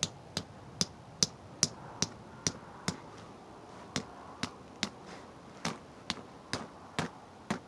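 Tent stake being hammered into hard ground: about sixteen sharp, ringing knocks, two or three a second, in two runs with a short break in between.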